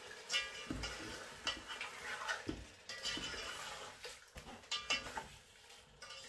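Black spatula stirring chicken pieces in a metal pot, scraping and knocking against the pot in irregular strokes, over a faint sizzle of the chicken frying.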